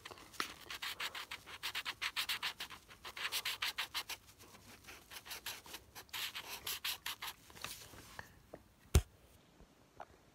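Green felt-tip marker scribbling quickly back and forth on paper, several strokes a second, stopping about eight seconds in. A single sharp knock follows about a second later.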